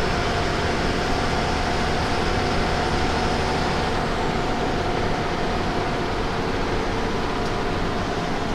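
Steady running noise of a moving bus: engine hum and road noise, continuous and even, with a faint steady whine.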